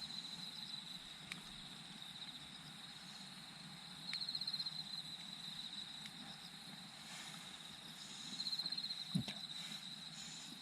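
Insects trilling: a steady high trill that swells into louder pulsing bursts about every four seconds, with a few faint knocks.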